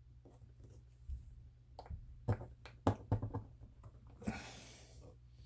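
Faint clicks and small knocks of a steel punch and wooden dowel working against a Beretta 92X pistol frame as the dog bone pin on the hammer spring cap is pushed out, with a brief rustle about four seconds in.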